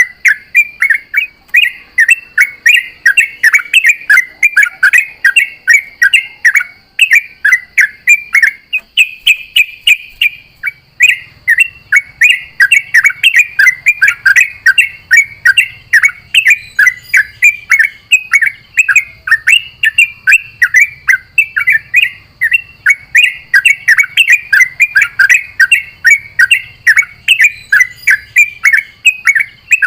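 Yellow-vented bulbul (trucukan) singing a fast, continuous chattering song, several sharp notes a second without a break, over a faint steady high tone.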